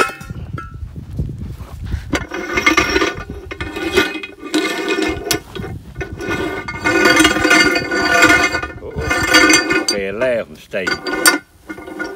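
Metal-on-metal squealing as the gang shaft of an International Harvester 480 disc harrow is twisted by hand, the spool and disc grinding on the shaft. It comes in repeated squeals of a second or two each, the pitch wavering near the end.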